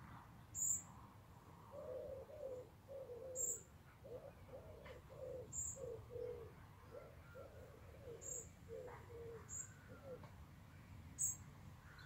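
A pigeon cooing in a long run of soft, low notes, with a small bird giving six short, thin, high chirps scattered through it.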